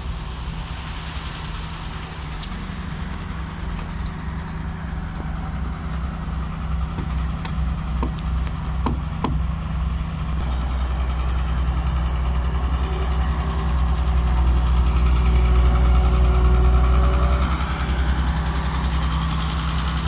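Diesel engines of heavy construction machinery, Dynapac single-drum road rollers among them, running steadily with a low hum that grows louder in the second half. A few sharp taps come about eight to nine seconds in.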